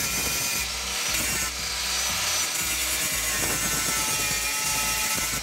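Angle grinder disc grinding into the rusty steel jaw of a pipe wrench: a continuous loud whine and rasp of the spinning disc under load against metal.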